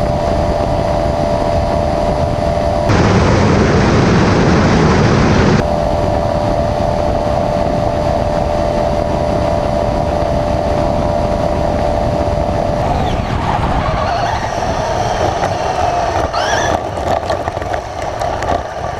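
Steady rush of road and wind noise from vehicles at highway speed, with a steady whine running through it. A louder, rougher rush cuts in about three seconds in and cuts out a couple of seconds later. A few short rising whines come near the end.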